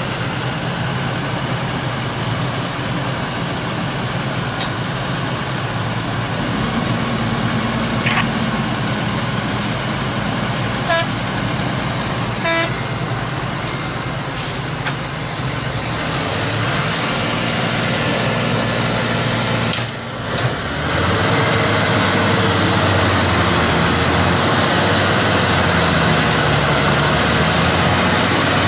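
Tractor diesel engines running steadily under load as a line of tractors pulls a bogged-down Massey Ferguson 8450 out of the mud, with two short horn toots about eleven seconds in, a second and a half apart. The engine sound grows louder after about twenty-one seconds.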